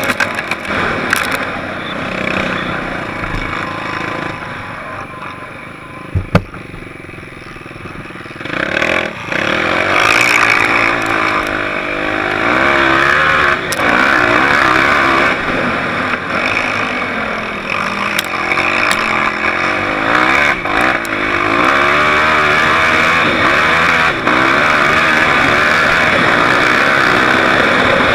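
Off-road vehicle engine heard from on board, revving up and down as it is ridden hard over sand, with heavy wind and rush noise. It is quieter for the first few seconds, with a couple of sharp knocks about six seconds in, then runs louder with its pitch rising and falling.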